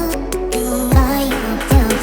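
Electronic background music with a beat. Deep bass kicks drop in pitch, about three of them, under a synth melody.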